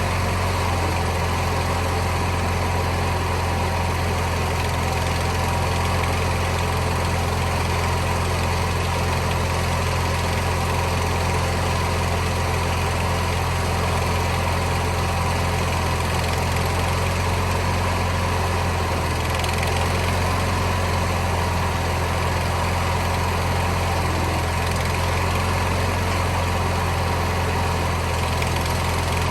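John Deere 400 garden tractor engine running steadily at a constant speed, with no revving.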